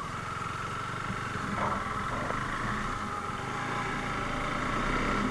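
KTM Duke 390's single-cylinder engine running steadily, with a steady whine above it and a noisy hiss of wind or road over the microphone.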